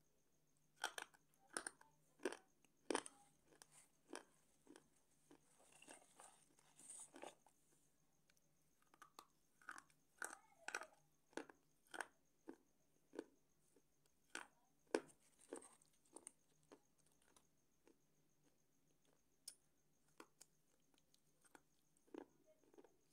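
Slate pencil being bitten and chewed, a series of sharp, brittle crunches. They come thick and fast in the first several seconds, then more spaced out, and only a few scattered crunches near the end as the pieces are ground down.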